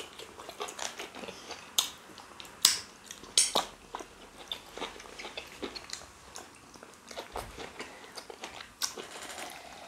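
Close-up chewing and wet mouth sounds of people eating fufu and egusi soup by hand: irregular soft clicks and smacks, a few louder ones in the first few seconds.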